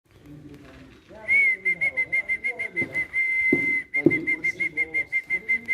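A high whistle held at one steady pitch, starting about a second in. Long held notes alternate with runs of quick repeated notes, about five a second. Two short knocks come in the middle.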